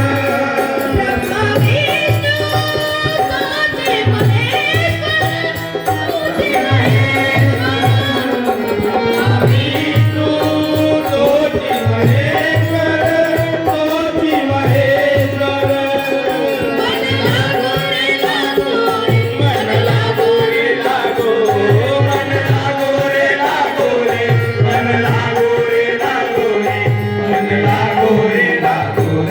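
Devotional bhajan played live: singing and harmonium over a steady dholak beat.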